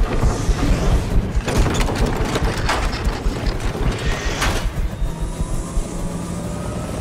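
Sound-designed machinery effects: a deep rumble under repeated metallic clanks and whooshes, as of heavy mechanical parts moving and locking together, with faint sliding whines near the end.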